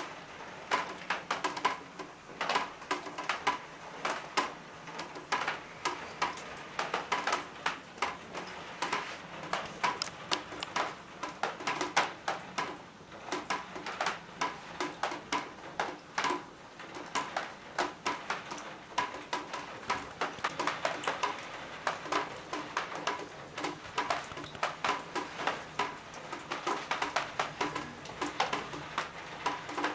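Water dripping and splashing in rapid, irregular taps, several a second, as rain leaks in through the roof under repair.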